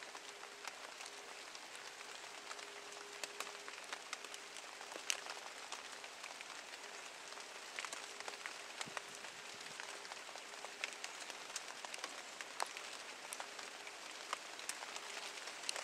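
Steady rain falling, with single drops ticking sharply close by now and then.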